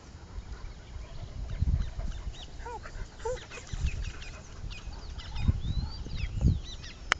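Birds chirping and calling in short, quick notes that glide up and down, with a couple of lower curved calls about three seconds in. Several low rumbles come and go underneath, and there is a sharp click near the end.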